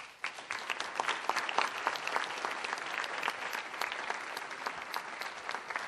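Audience applauding: many hands clapping in a dense, steady patter that starts suddenly.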